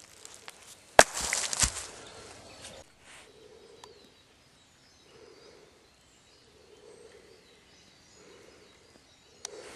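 A single sharp knock about a second in, followed by a couple of seconds of rustling and handling noise, then quiet woodland background.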